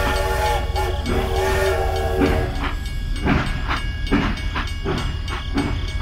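Battery-powered toy steam locomotive's electronic whistle sounding in long held toots, then about two and a half seconds in giving way to rhythmic beats about three a second.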